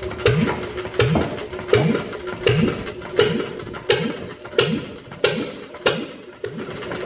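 Ruston & Hornsby 1VSH single-cylinder diesel running slowly just after being hand-started, with a sharp knock on each firing stroke, about one every 0.7 seconds. The beat grows less even near the end.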